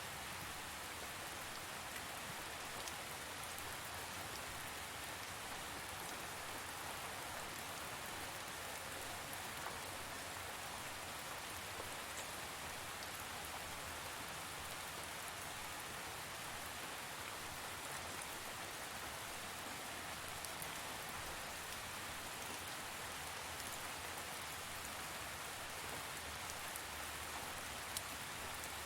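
Steady rain falling: an even hiss of rain with a few separate drops ticking through it.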